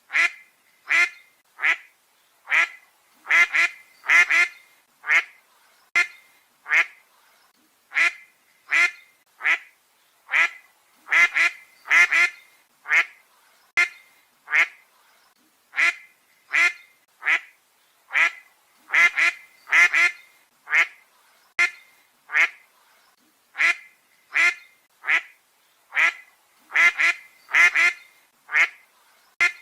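Duck quacking: short, harsh quacks about one or two a second, some in quick pairs or threes, repeating steadily.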